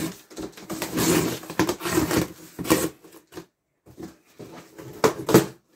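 Scissors cutting and scraping at the packing tape on a cardboard box, with the cardboard rustling and knocking in irregular bursts.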